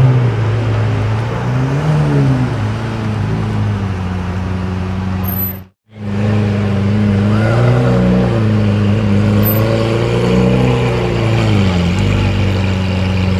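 Lamborghini Aventador's V12 engine, with a Novitec exhaust, idling low with gentle throttle blips that raise and drop its pitch. The sound cuts out briefly about six seconds in. It then comes back as another Aventador idling with a few more light revs.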